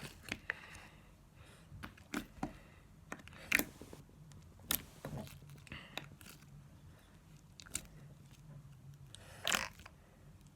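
Blue glossy slime being squeezed and stretched in the hands, giving irregular small clicks and pops.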